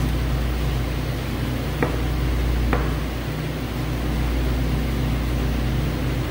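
Steady machinery hum with air hiss, like a ventilation or refrigeration fan running, broken by two light knocks about two and three seconds in.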